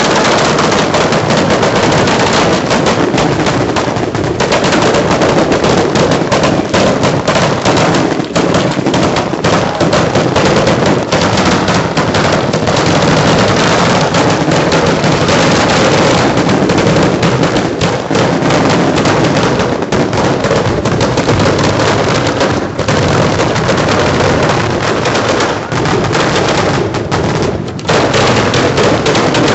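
Fireworks fired at close range from the firing area: a dense, nearly unbroken barrage of rapid launch shots and crackle, with only a few brief lulls.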